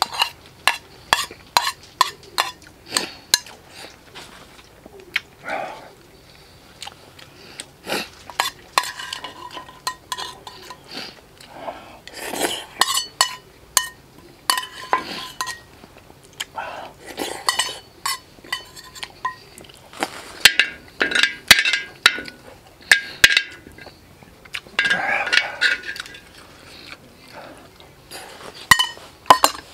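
Eating utensils clinking and scraping against a metal bowl: many sharp clicks with short ringing, in irregular clusters.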